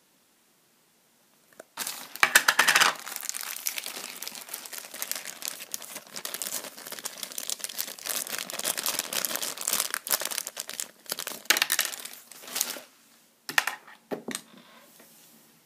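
Thin clear plastic bag crinkling and rustling as it is handled and pulled off a plastic figure, starting about two seconds in, followed by a few sharp clicks near the end.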